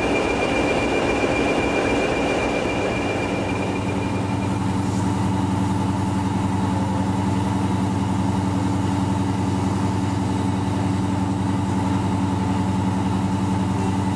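British Rail Class 20 diesel locomotive idling with a high steady whistle, then, about four seconds in, a Class 55 Deltic diesel locomotive idling at a standstill, its two Napier Deltic two-stroke engines giving a steady, even engine note.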